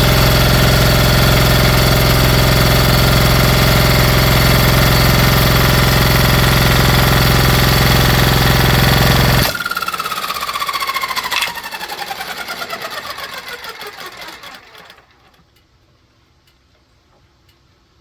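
Briggs & Stratton Intek V-twin engine running on a single piston, loud and steady at high speed, then suddenly failing about nine and a half seconds in: the power cuts and it coasts down with a falling whine and a sharp knock, coming to rest a few seconds later. The owner takes the failure for a connecting rod blowing up.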